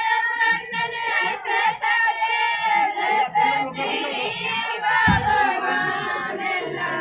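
A group of voices singing together in long, wavering notes over crowd noise, with a single low thump about five seconds in.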